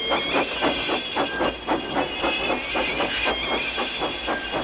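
Steam locomotive chuffing in an even rhythm of about four puffs a second, over a steady high-pitched hiss.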